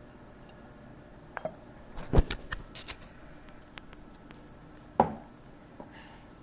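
Cat eating from a stainless steel food bowl: scattered clicks and knocks, a cluster about two seconds in, and a single sharp knock with a short ringing tail about five seconds in.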